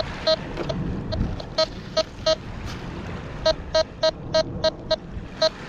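Tesoro Outlaw metal detector giving a string of short, high beeps, some in quick runs of three or four a second, as its coil passes over a metal target: a signal that something metal is still in the ground.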